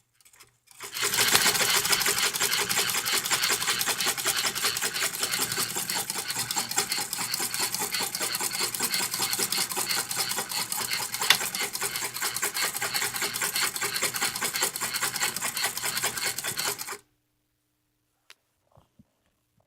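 1957 Toyota Marvel De Luxe sewing machine running at a steady fast pace, stitching through upholstery-grade fabric; it starts about a second in and stops abruptly a few seconds before the end, followed by a few faint clicks.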